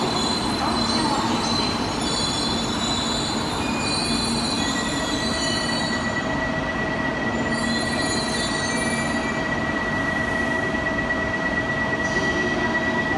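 Shinkansen train pulling slowly into the platform: a steady running rumble with high squealing and whining tones. About five seconds in, a steady high whine sets in and holds.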